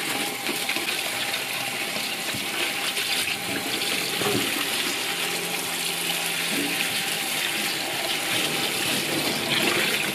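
Kitchen tap water running steadily into a stainless steel bowl of dried bamboo leaves, splashing over the leaves as a hand rinses them.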